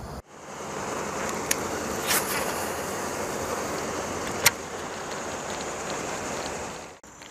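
Steady rushing noise outdoors on a boat, with three sharp clicks: about a second and a half in, just after two seconds, and past four seconds. It begins just after the start and stops abruptly about seven seconds in.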